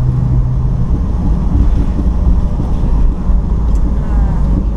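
Steady low rumble of a moving vehicle, with a low humming tone that stops about a second in.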